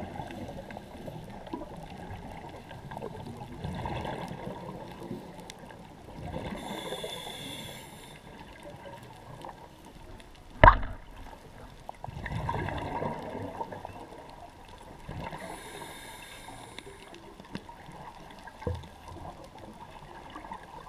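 A scuba diver breathing underwater through a regulator, in a slow cycle about every eight or nine seconds: each inhale is a hiss and each exhale is a rush of bubbling exhaust. A single sharp knock stands out about ten and a half seconds in, with a fainter one near the end.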